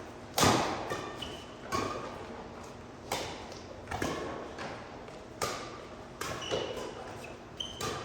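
Badminton rally: rackets striking the shuttlecock about once every second, seven sharp hits with a short ringing tail, the first the loudest. Brief high squeaks, typical of court shoes, come between some hits.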